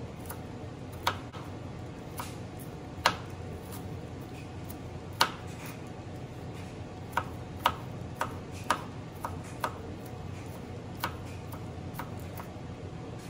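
Kitchen knife slicing peeled garlic cloves on a plastic cutting board: the blade taps the board irregularly, about a dozen or so times, a few of them sharper and louder, over a steady low hum.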